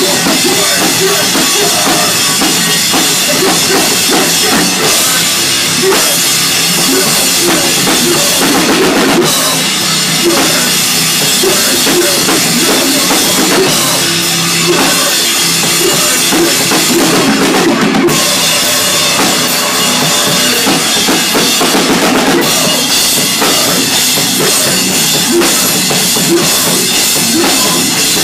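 A live hardcore band playing loud in a small room: drum kit with bass drum and cymbals driving under bass guitar, continuous throughout.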